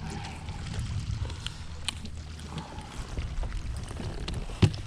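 Handling noise aboard a fishing boat on the water: a steady low rumble with scattered small clicks, and one sharp knock near the end.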